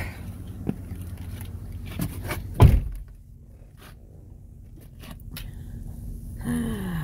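A person climbing into the driver's seat of a van, with shuffling and light knocks, then the driver's door shut with a heavy thud about two and a half seconds in. After the thud the sound is much quieter, as heard from inside the closed cab.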